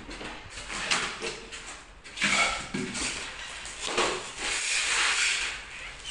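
Irregular scraping, rustling and sharp knocks of hands working on a glass shower enclosure's panels and frame during installation.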